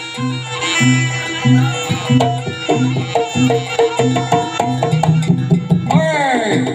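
Live jaranan music: hand drums beat a fast, even rhythm over a held tone. Sweeping pitch glides come in near the end.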